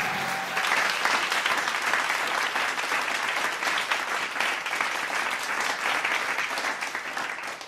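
Applause: many hands clapping in a dense, steady patter, tailing off near the end. The choir's last sung note dies away just as it begins.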